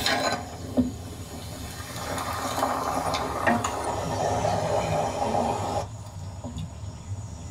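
Hot oil sizzling and bubbling as chicken pieces deep-fry in a large pot, with small crackles through it; the sizzle drops off about six seconds in.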